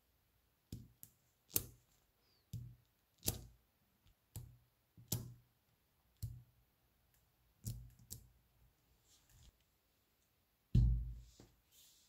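Magnetic balls clicking and snapping together as sections of a magnetic-ball sculpture are pressed into place: about a dozen sharp, irregular clicks, each with a soft low knock, the loudest near the end.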